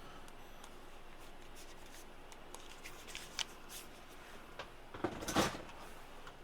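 Light handling noise on a workbench: scattered small clicks and rustles, with a louder brief rustling scrape a little after five seconds in.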